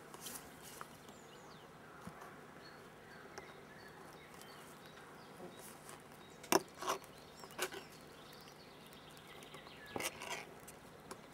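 Ring-pull ration tin being opened by hand: a sharp metallic click a little over halfway through as the seal breaks, then a short run of clicks and scraping near the end as the lid is peeled back.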